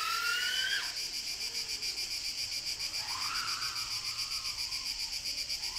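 Insects chirping in a fast, steady pulse, with the faint whine of the Axisflying Manta 3.6-inch FPV quadcopter's motors rising and falling in pitch.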